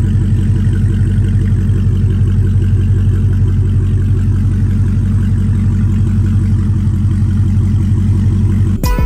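Dodge Charger's engine and exhaust idling steadily with an even pulsing rhythm, cutting off suddenly near the end.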